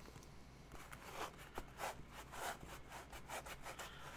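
Foam being scraped away by hand with an abrasive tool: a run of rubbing, rasping strokes, about two a second, tearing out bits of foam.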